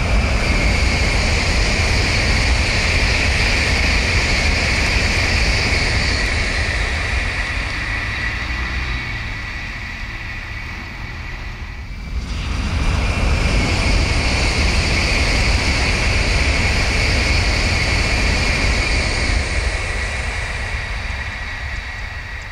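Tokaido Shinkansen N700-series trains passing at high speed, heard twice in a row: each a loud, steady rushing noise with a high hiss that eases off, the first cut off abruptly about halfway through and the second starting straight after.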